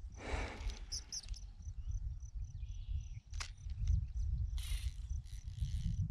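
Wind rumbling on the microphone, over a steady high chirp of an insect pulsing about three times a second. A few brief rustling hisses come through while the angler reels in a hooked fish.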